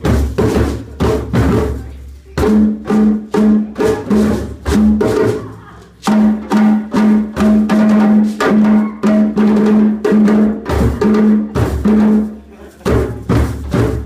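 Group of djembe hand drums playing a fast, steady rhythm together, with a deeper drum sounding a repeated pitched note. The drumming breaks off briefly a few times and starts again.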